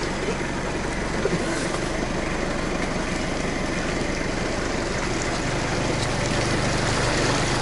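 Vehicle driving along a wet dirt road: a steady engine hum under tyre and road noise, growing a little louder near the end.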